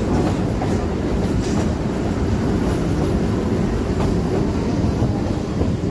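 Electric multiple unit (EMU) suburban train running along the line, heard from aboard: a steady, loud rumble of wheels and running gear with a few faint clicks from the track.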